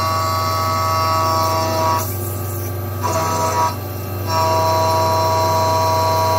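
CNC mill face-milling flat bar stock under flood coolant, with a steady high-pitched whine of cutter chatter. The whine drops out twice for under a second, about two and four seconds in. The operator puts the chatter down to the cutter sitting in a non-rigid tool holder rather than a collet holder.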